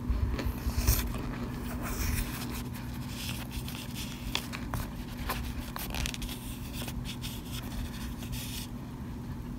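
Plastic spoon scraping and crunching through cornstarch chunks and powder in a glass bowl, with crackles and sharp clicks; the scraping stops near the end. A steady low hum runs underneath.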